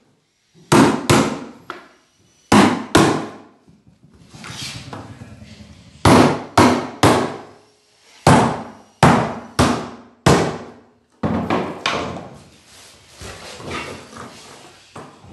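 A hammer nailing carpet gripper strips down onto wooden floorboards: about a dozen sharp strikes, mostly in quick groups of two or three, with short pauses while the strip is moved along.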